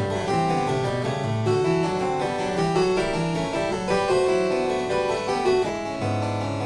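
Background keyboard music, harpsichord-like, playing a quick, steady run of notes over a bass line.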